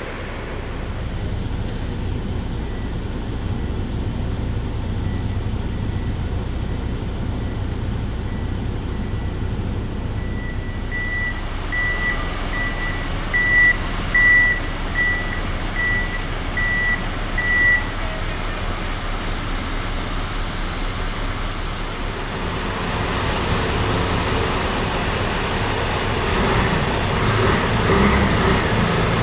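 Steady diesel engine rumble from a container reach stacker working beside the truck, with its reversing alarm beeping about twice a second. The beeping is faint at first and louder for several seconds before it stops partway through. The engine noise grows louder near the end.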